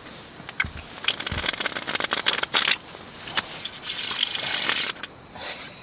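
Rustling and crinkling of a nylon sleeping bag and bedding as someone shifts about, in two stretches with sharp clicks, after two soft thumps in the first second and a half.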